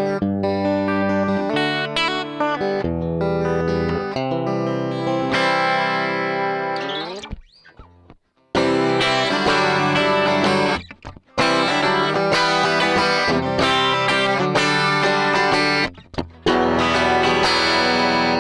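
Electric guitar strumming sustained chords through a Strymon Deco tape saturation and double-tracking pedal, set to cassette tape saturation with Double Track in Bounce mode and a slow lag. Partway through, one chord sinks in pitch as it fades out, followed by a short silence. The chords pause briefly twice more.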